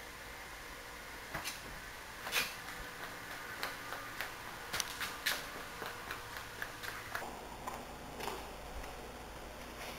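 Irregular light clicks and taps, about a dozen, over a steady faint hiss. They begin a little over a second in, the loudest comes early, and they thin out near the end.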